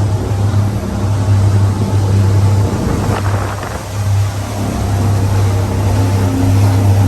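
2004 Sea Ray 320 Sundancer's inboard engines running steadily with the boat underway, a low hum under wind and water noise, with a brief rush of noise about three seconds in. The steady hum is the sign of the boat running well.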